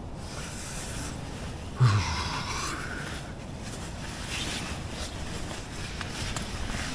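Strong mountain wind gusting steadily, with a sudden louder sound about two seconds in that lasts about a second.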